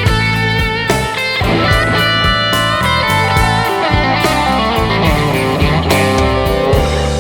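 Background music led by electric guitar, with bending sustained notes over a steady bass and beat.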